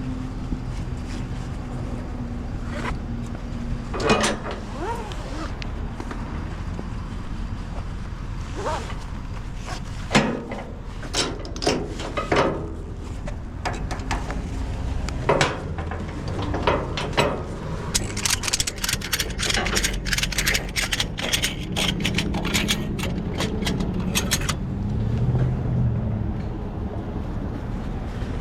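Metal clanks and knocks over a steady low engine idle, with a long run of rapid metallic clicking about two-thirds of the way through.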